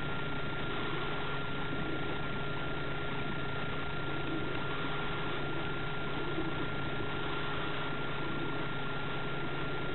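A steady, unchanging hum and hiss with a constant thin high tone over it.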